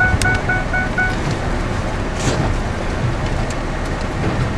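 Vehicle's seatbelt warning chime beeping rapidly, about four short beeps a second, stopping about a second in; the unbuckled seatbelt is what sets it off. Steady engine and road noise inside the truck's cabin.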